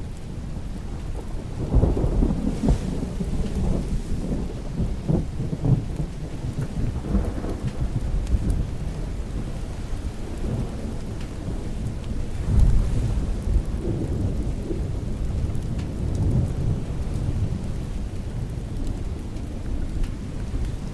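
Thunder rumbling over steady rain, with a heavy roll of thunder about two seconds in and another around twelve seconds.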